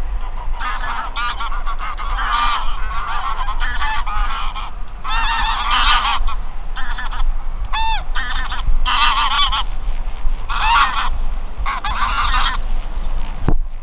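A flock of wild geese honking in flight, many overlapping calls in quick succession.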